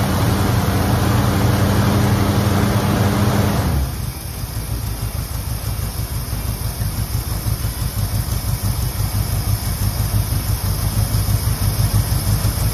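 1969 Ford's engine running for the first time after 23 years in storage: it holds a steady, higher speed, then about four seconds in drops abruptly to an uneven idle that gradually gets louder.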